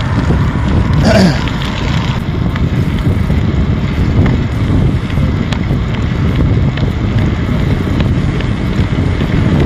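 Wind buffeting the microphone of a camera riding on a moving bicycle, a steady low rumble, with a brief louder sound about a second in.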